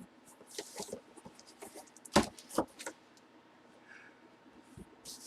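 Handling noises from trading cards and packaging on a table: short rustles and light clicks, with a sharp knock about two seconds in and a second knock just after.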